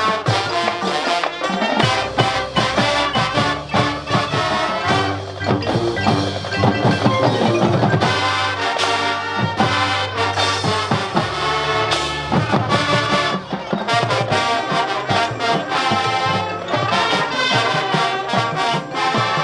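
Marching band playing a Motown arrangement: brass section with trumpets and trombones over a drumline's steady beat.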